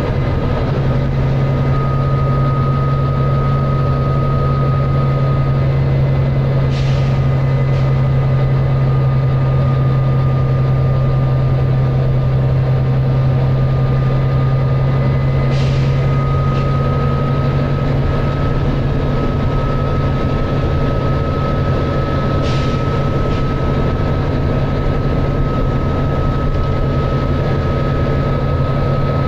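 Volvo B9TL double-decker bus's nine-litre six-cylinder diesel and drivetrain running steadily at cruising speed, heard from inside the bus as a loud, even low drone with a steady high whine that rises slightly in pitch in the second half. Three brief hissy bursts cut through, about 7, 16 and 22 seconds in.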